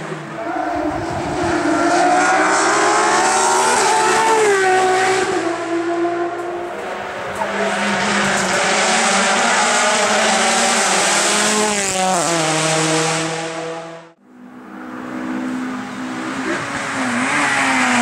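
Race car engine at full throttle on a hill climb: a Citroën Xsara rally car pulls hard, its pitch climbing and dropping back at upshifts. After a sudden break, a Renault Clio race car accelerates.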